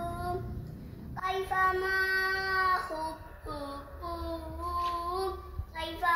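A young child singing a sholawat alone, unaccompanied, in long drawn-out notes with short breaks between phrases.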